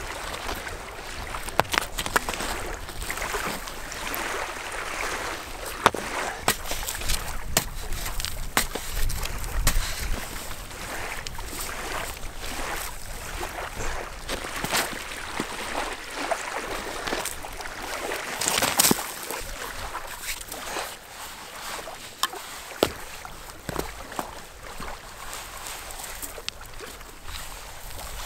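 Digging in gravelly sand: a tool scraping and crunching through stones and grit, with irregular sharp clacks of rocks being moved and set, and sand scooped and let fall by hand.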